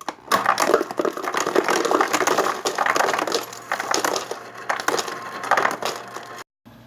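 Dense, irregular crunching and crackling, like something being crushed or crumpled, in uneven waves of many sharp crackles that stop abruptly near the end.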